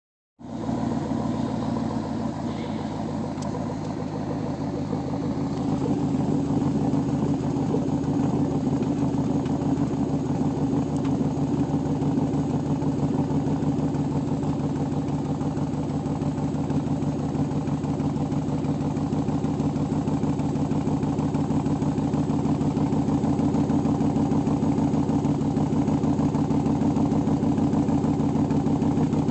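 Chevrolet Trailblazer SS's 6.0-litre LS2 V8 running steadily at a constant speed, getting slightly louder about six seconds in.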